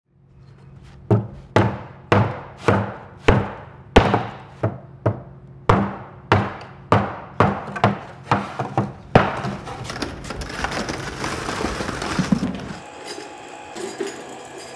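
A run of about sixteen hard knocks at uneven intervals, each ringing out briefly, over a low steady hum. After them comes a rough scraping, rustling noise for a few seconds.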